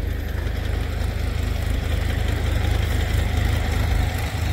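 Tractor engine running at idle: a steady low rumble.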